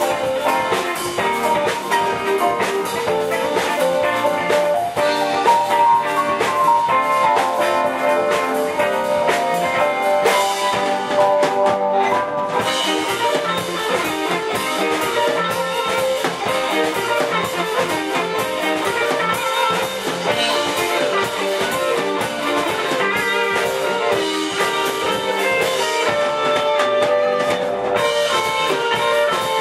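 Live band playing an instrumental: electric guitars over bass guitar and drum kit.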